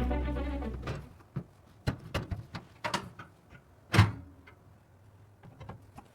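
Background music fading out, then a run of short, irregular clicks and knocks, the loudest about four seconds in: computer parts being handled and snapped into place during a PC build.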